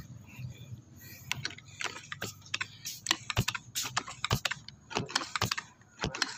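Irregular sharp clicks and light knocks, a dozen or so, from hands handling the air rifle and its scope.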